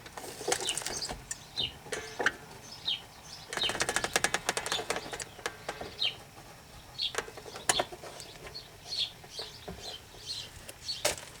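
Small birds chirping repeatedly, with bursts of rapid clicking and rattling from hand-tool work on the car near the start and in the middle, and one sharp knock near the end.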